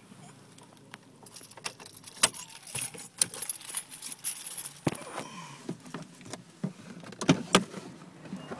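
Irregular light clinking and rattling close to the microphone, a run of small sharp clicks with a few louder ones about two, three, five and seven seconds in.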